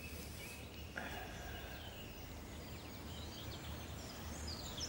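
Quiet background ambience: a steady low rumble with faint birdsong, the chirps coming more often near the end.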